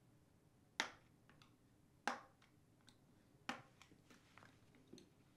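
Plastic retaining tabs of a Samsung dishwasher's middle duct holder clicking free as they are pried off the main duct with a small flathead screwdriver: three sharp clicks about a second and a half apart, with a few fainter ticks between them.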